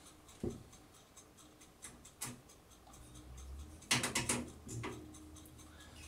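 Faint metal clicks and ticks of a small screw being handled and tried with a screwdriver in a PC case standoff. There is a knock about half a second in and a quick run of louder clicks about four seconds in.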